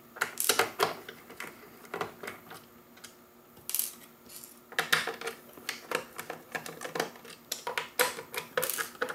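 Sharp clicks and light metallic clinks of small screws and plastic parts being handled as the screws are taken out of a Roomba 700-series robot vacuum's keypad, scattered at first and coming thicker in the second half.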